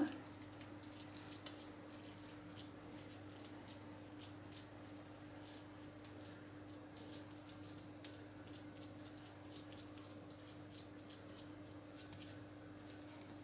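Faint wet, sticky clicking of hands pressing and spreading raw minced-pork stuffing over a pork loin on a wooden cutting board, getting busier about halfway through, over a steady low hum.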